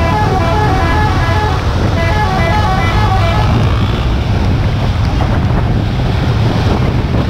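A bus's multi-tone musical horn plays a rapid tune of short stepped notes, stopping about three and a half seconds in, over a steady low rumble of engine, road and wind noise.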